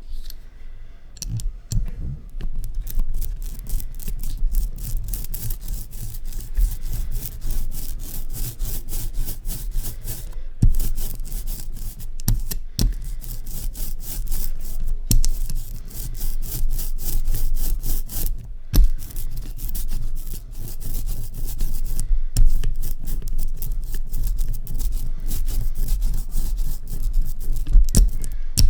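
Rapid, steady rubbing strokes of a printmaking hand tool working a linocut block or print, pausing briefly every few seconds.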